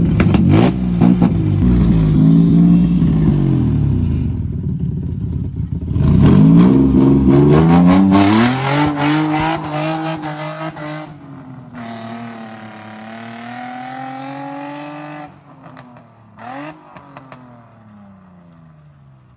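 Nissan 350Z's V6 engine revving and accelerating, its pitch rising and falling several times, then holding steady and dropping away as the sound fades over the last few seconds.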